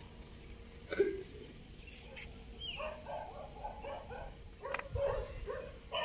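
A dog yelping: one sharp yelp about a second in, followed by scattered softer yips and whines.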